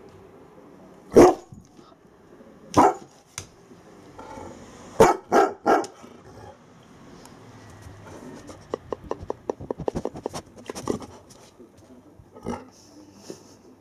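Bernese Mountain Dog barking in grumpy protest: single barks about a second and three seconds in, three quick barks around five seconds, then a run of quick short ticks and two more barks near the end.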